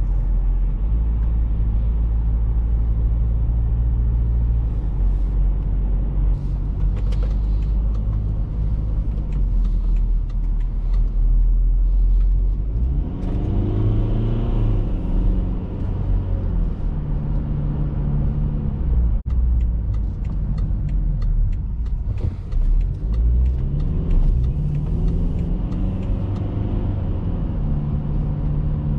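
Inside the cabin of a BMW X3 F25 2.0d, a four-cylinder turbodiesel with an automatic gearbox, under way: a steady low engine drone with road noise. Twice the engine note rises and falls as the car pulls away and shifts, and there is a single sharp click about two-thirds of the way through.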